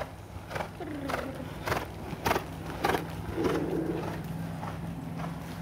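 Horse's hooves striking a sand arena at a trot, a regular dull knock about every half second. A low steady hum comes in about halfway.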